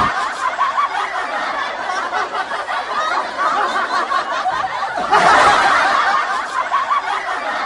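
People snickering and laughing, with a louder burst of laughter about five seconds in.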